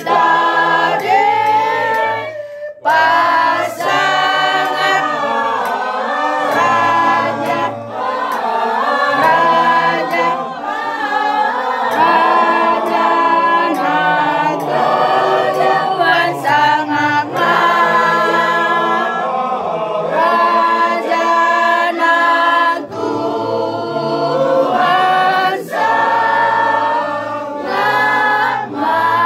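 Mixed choir of men and women singing a song together a cappella, without instruments, at rehearsal. The singing is continuous, broken only by a brief pause about three seconds in.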